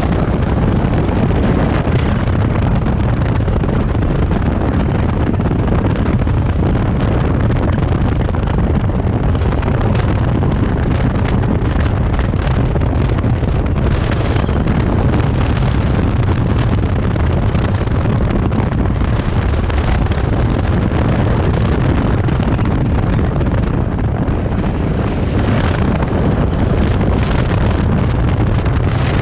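Kawasaki Versys 650 parallel-twin engine running steadily under way on a gravel track, mixed with heavy wind noise on the microphone.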